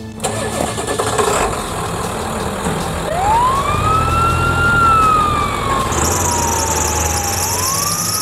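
Ambulance siren wailing: about three seconds in it rises in one slow sweep, falls away gradually, and near the end starts to rise again. The ambulance's engine runs underneath as it pulls away.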